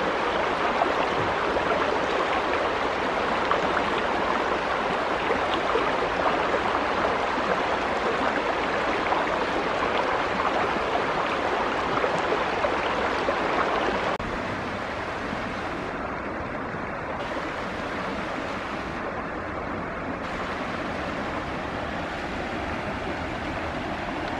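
Steady rushing outdoor noise, like running water, that drops a little in level about halfway through.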